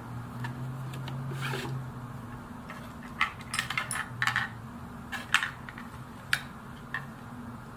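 A string of light clicks and clinks of small hard objects being handled, starting about three seconds in and ending near the end, over a steady low hum.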